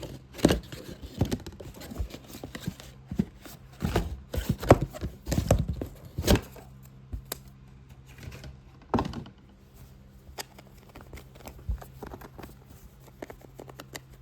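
Fast, irregular tapping and scratching on a box, with heavy knocks in the first half and lighter, quicker taps after about seven seconds. A faint steady low hum runs underneath.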